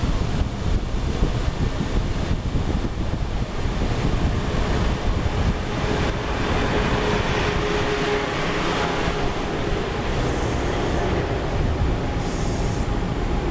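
Amtrak HHP-8 electric locomotive and its stainless-steel Amfleet coaches running past close by: a loud, steady rumble and rush of wheels on rail, with a faint steady whine for a few seconds midway through.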